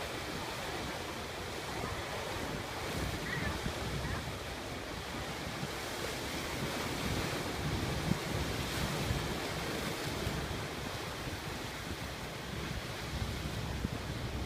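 Sea waves surging and washing in continuously, with wind buffeting the microphone.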